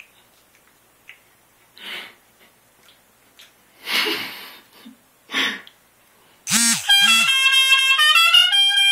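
A few soft scuffs, then about six and a half seconds in a loud run of held, steady-pitched notes that step up and down in pitch, each lasting half a second to a second.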